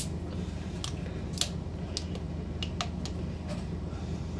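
A few sharp, light clicks and taps, scattered over about two seconds, above a steady low hum: small handling noises from a glass of ice and a plastic drink bottle.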